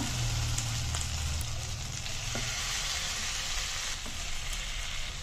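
Marinated chicken leg pieces sizzling steadily in shallow hot oil as they are laid into the frying pan, with a couple of faint taps.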